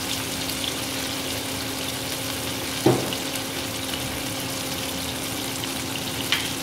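Chicken pieces sizzling in hot oil in a frying pan, with a steady low hum underneath. A sharp knock about three seconds in and a lighter click near the end.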